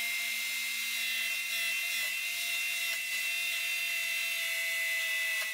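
Jigsaw mounted upside down under a table, running with a steady high-pitched motor whine while a wooden router base is fed into the blade to cut away a small section of the base.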